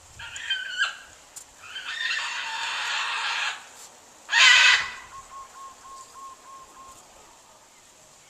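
Large pet bird crying over and over: two short calls, a long harsh call of nearly two seconds, then a short, very loud screech about halfway through. A faint run of about eight short, evenly spaced tones follows.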